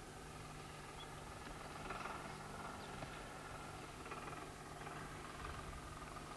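Faint, steady engine hum of a four-wheel-drive vehicle running on a rocky hillside.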